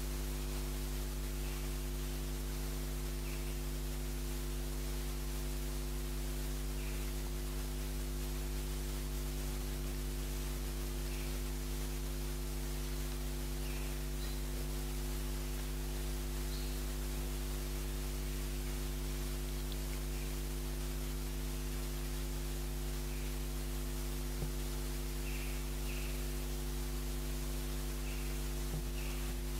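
Steady electrical mains hum with a background hiss, unchanging throughout; a couple of faint small clicks near the end.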